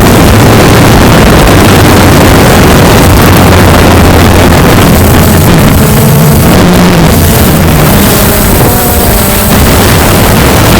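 Strong wind buffeting the microphone, loud and constant, over a steady low hum from a DJI Phantom quadcopter's propellers.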